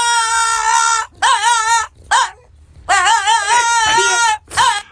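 French bulldog 'singing': a series of high, wavering howling whines with short breaks between them, the longest a bit over a second.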